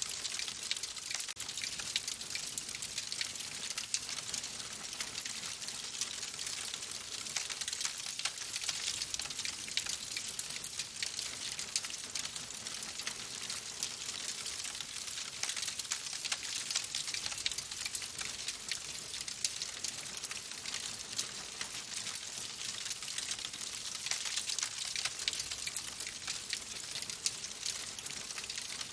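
Wood fire crackling in a fireplace: a steady hiss full of small, quick pops and snaps.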